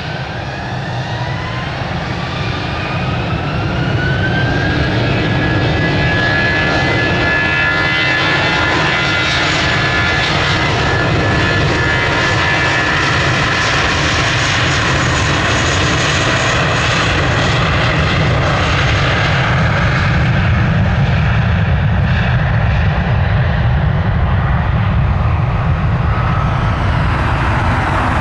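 Airbus A320's twin IAE V2500 turbofan engines spooling up to takeoff thrust: a whine rises in pitch as the sound grows louder over the first few seconds. Then a steady loud jet noise with a deep rumble holds as the airliner makes its takeoff roll.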